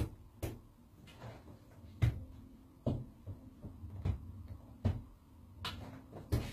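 A series of irregular knocks and thuds, roughly one a second, coming closer together near the end.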